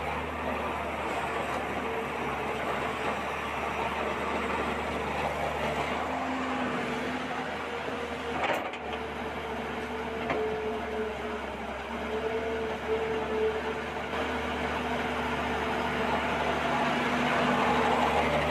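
Steady whirring drone of a small motor, with a low hum and a slightly wavering whine, and a brief click about eight and a half seconds in.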